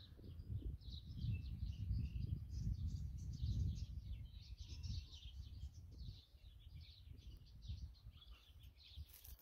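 Wild birds chirping and singing, many short calls overlapping, under a low uneven rumble that is loudest in the first half.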